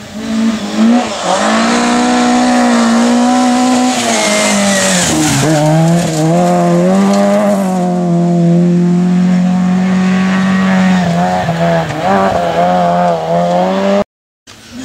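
Rally car engine held at high revs as the car drives flat out along a gravel stage, its note briefly dropping and climbing again about five seconds in, with a hiss of tyres and gravel under it. The sound cuts off just before the end.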